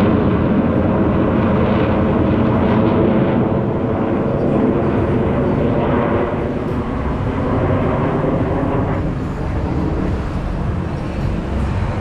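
Jet noise from Blue Angels F/A-18 Super Hornets flying a display pass: a loud, steady rumble, loudest at the start and slowly easing off after a few seconds.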